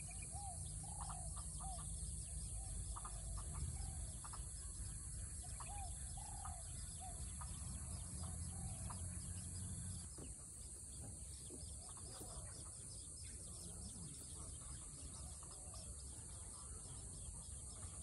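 Small birds giving short, soft chirps again and again, more often in the first half and sparser after, over a steady high-pitched hiss.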